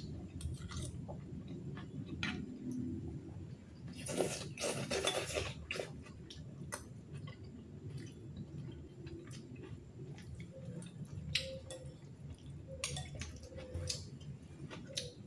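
Metal spoon and fork clinking and scraping against a ceramic bowl while noodles are eaten, in scattered irregular clicks, with a longer, louder burst about four seconds in.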